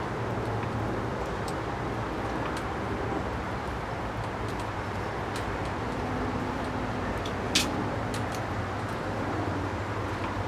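Steady low background rumble with scattered light ticks of small metal parts being handled, and one sharp click about seven and a half seconds in.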